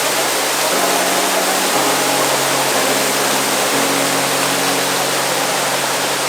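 Waterfall rushing steadily, with low held tones underneath that shift in pitch a few times.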